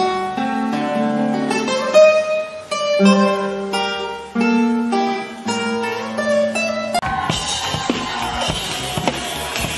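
Classical guitar played solo: a picked melody of single notes over bass notes. About seven seconds in it cuts abruptly to a drum kit being played, with rapid drum and cymbal hits.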